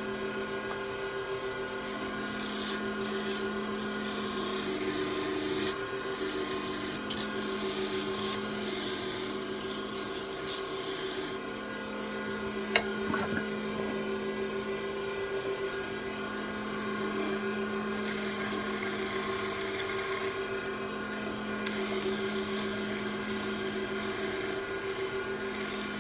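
Wood lathe motor running with a steady hum while a turning tool cuts the spinning wood in stretches, a loud hissing scrape of shavings coming and going. A single sharp click about thirteen seconds in.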